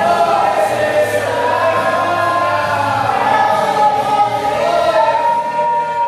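Choir singing a gospel song, with long held notes over a steady low accompaniment.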